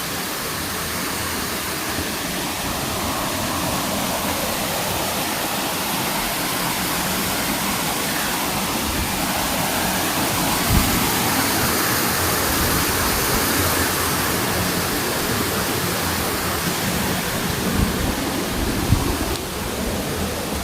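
Steady rush of falling water from a tall waterfall, about 70 m high. A few brief low thumps come through, one about halfway and two near the end.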